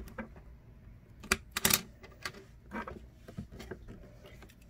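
Plastic Lego bricks clicking and clattering as they are handled and sorted: a scatter of short, sharp clicks, with a louder cluster a little under two seconds in.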